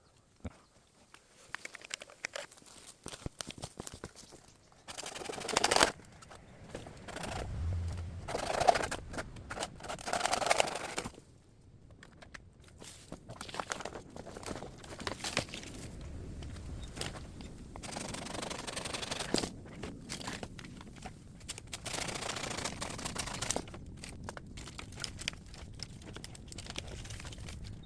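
Dry bamboo leaves and branches rustling and crackling as fallen bamboo is pulled and handled, with sharp snaps of twigs and louder bursts of rustling now and then.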